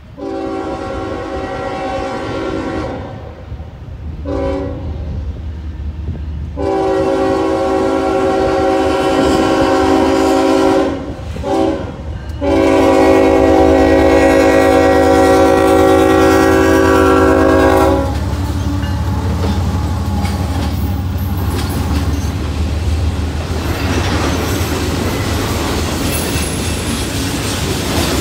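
Air horn of a Union Pacific diesel freight locomotive blowing a crossing signal: a chord of several tones sounded in long and short blasts, the last one held about five seconds. Then the locomotives and freight cars roll past with a steady rumble and the clatter of wheels on the rails.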